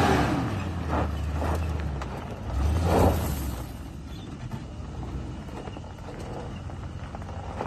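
Off-road SUV engine revving hard on a steep dirt climb, easing off after about two seconds. A second short burst of revs comes about three seconds in, then the engine settles to a lower running sound.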